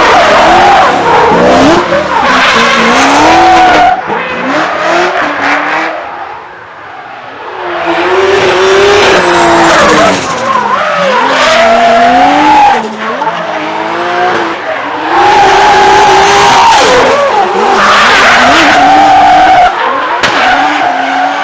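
Drift car under power, its engine revving up and down hard with tyre squeal from sliding tyres, loud. Quieter for a moment around six seconds in, then loud again.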